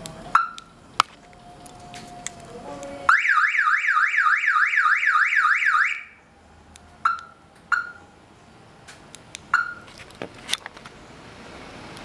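Aftermarket car alarm: short single chirps, then about three seconds of loud siren sweeping rapidly up and down, about four times a second, which cuts off suddenly. More single chirps and a few sharp clicks follow.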